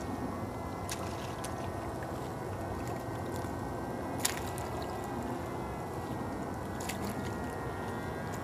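Thin pond ice giving a few sharp clicks and cracks under a dog's paws at the ice edge, the loudest about four seconds in, over steady background noise.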